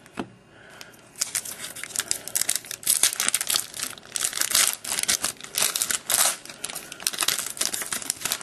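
Foil wrapper of a baseball card pack being torn open and crinkled by hand, an irregular crackling that starts about a second in and keeps on, with a short click just before.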